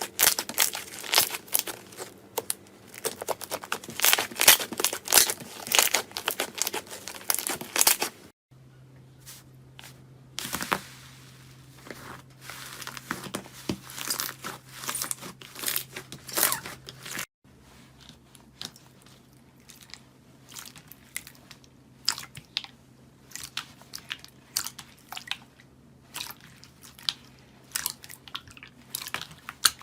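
Slime being handled close to the microphone, making dense, irregular crackling and crunching clicks. It comes in three separate stretches that cut over about 8 and 17 seconds in, the crackling densest in the first.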